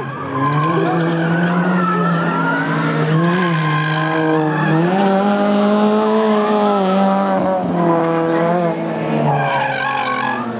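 Front-wheel-drive race cars running hard, their engines held at high revs with the pitch rising and falling, and tyres squealing and sliding on the tarmac.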